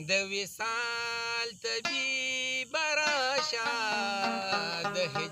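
A man singing a Pashto folk song in long held notes, accompanied by a rubab, with brief breaks between phrases.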